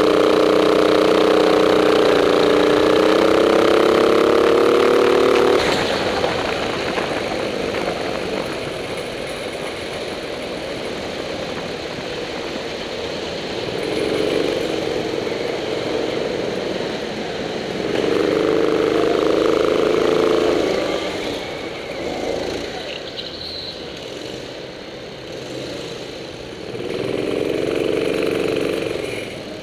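Go-kart engine running at high, slowly rising revs, then cutting back about five and a half seconds in. After that the kart rolls more quietly, with three shorter spells of engine sound later on.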